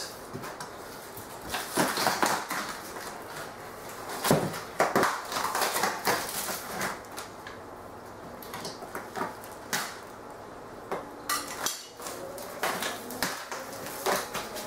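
Large knife slicing through packing tape and a cardboard shipping box, with irregular scraping and crackling strokes and the cardboard being handled and pulled open.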